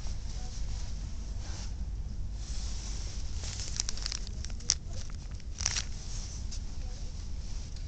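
Plastic packaging crinkling as a hand handles a hanging bag of rubber bands, with a cluster of sharp crackles about four to six seconds in, over a steady low rumble.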